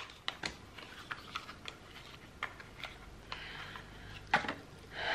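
Small cardboard advent-calendar box and its paper wrapping handled by hand: a run of light clicks and ticks as the box is opened, a brief soft rustle of paper about three and a half seconds in, and a sharper click just after four seconds.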